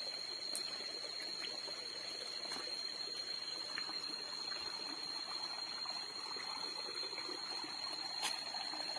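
Water of a small stream trickling and flowing steadily, with a thin, steady high tone above it and a few faint ticks.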